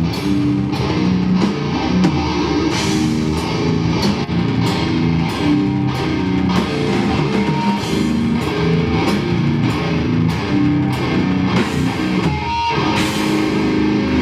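A heavy band playing live: distorted electric guitar riffs over a pounding drum kit, with a brief break in the riff about twelve and a half seconds in.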